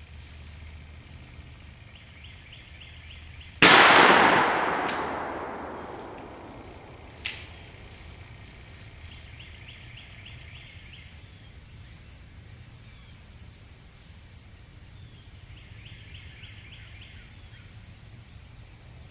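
A single shotgun shot at a turkey, very loud and sudden, its report rolling away over two to three seconds. A smaller sharp crack follows about three and a half seconds later.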